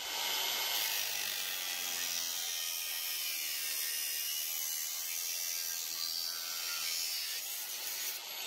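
Angle grinder cutting through a steel hydraulic pipe: a steady, high grinding noise of the disc in the steel that starts abruptly and eases slightly near the end as the cut goes through.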